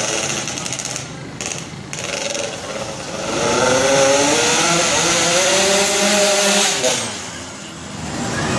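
Honda Dio 125 scooter engine revved hard as it accelerates toward and past the listener. The high, buzzing note climbs from about three seconds in, is loudest for a few seconds, then drops in pitch and fades as it goes by.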